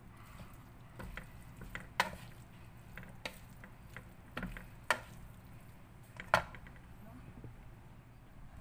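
A utensil knocking and scraping against a cooking pot, with scattered light clicks and four sharper clacks about a second and a half apart.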